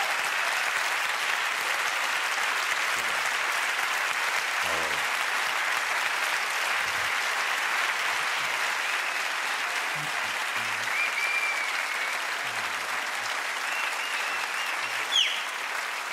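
Large theatre audience applauding steadily. A few high whistles come through late on, the sharpest a short falling whistle near the end.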